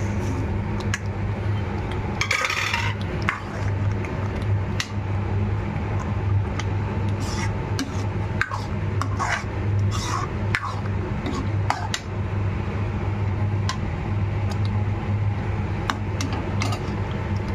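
Metal spoon scraping and clinking against a metal cooking pan while stirring a thick curry gravy with peas, in irregular strokes over a steady low hum.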